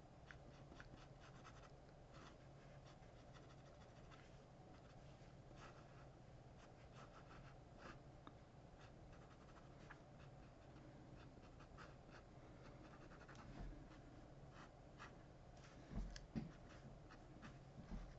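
Ink pen scratching faintly on paper in short, quick strokes, over a steady low hum. A few soft thumps come near the end.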